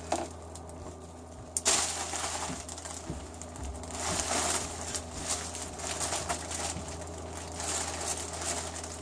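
Thin plastic shopping bag rustling and crinkling as hands dig through it and pull out a smaller clear plastic bag; the rustling starts about two seconds in. A steady low hum runs underneath.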